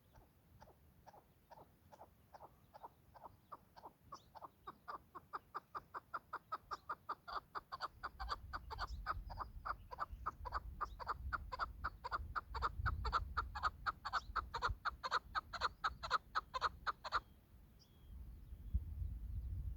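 Chukar partridge calling: a long series of short, repeated 'chuk' notes that starts slow and quiet, speeds up and grows louder to several notes a second, then breaks off abruptly a few seconds before the end. A low rumble sits underneath during the second half.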